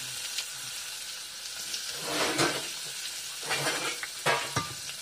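Hot oil sizzling in an aluminium pot as a tempering of mustard seeds, cumin and turmeric fries for a curry. The sizzle grows louder twice, around two seconds and four seconds in.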